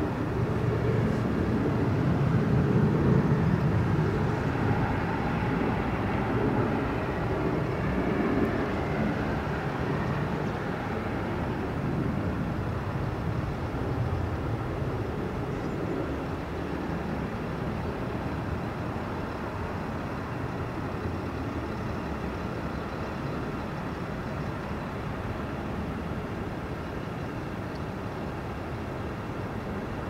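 Low, steady outdoor rumble that swells over the first few seconds and then slowly fades.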